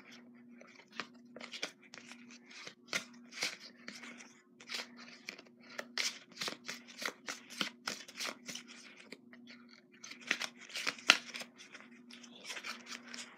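Trading cards being handled and flipped through: irregular clicks, snaps and rustles of card stock, with one sharper snap near the end.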